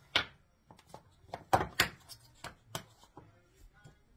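Kitchen clatter: a string of knocks and taps as containers and utensils are handled on the counter, the loudest about one and a half seconds in.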